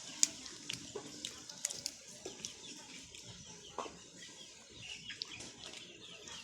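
Eating sounds: a run of sharp clicks and taps from clam shells and utensils during a meal of kinilaw clams and rice, the loudest about a quarter-second in. Faint calls can be heard in the background.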